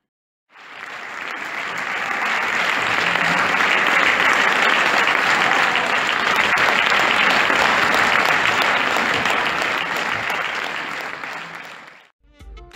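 Theatre audience applauding steadily. The applause fades in about half a second in and fades out near the end, where music begins.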